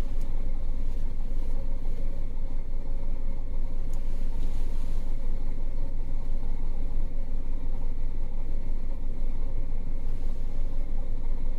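Car engine idling steadily, heard from inside the stationary vehicle's cabin.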